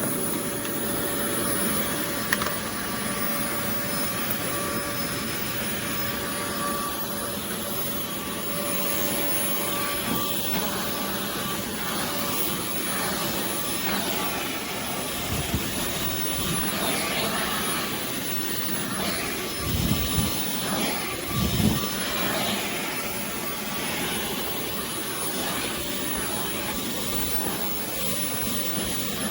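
Oreck Commercial XL Pro 5 compact canister vacuum running steadily, a constant whine over rushing air, with a few dull bumps past the midpoint.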